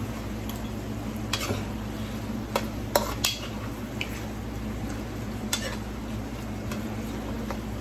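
A spatula stirs chicken feet in sauce in a hot nonstick frying pan, knocking and scraping against the pan several times. A light sizzle and a steady low hum run underneath.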